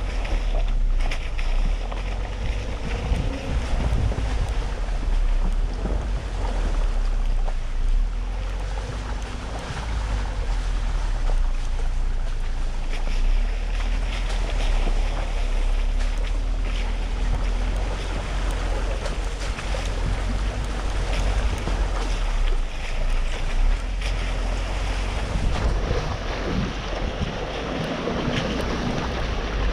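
Engine running under heavy wind noise on the microphone: a steady, deep rumble with a low engine drone beneath it.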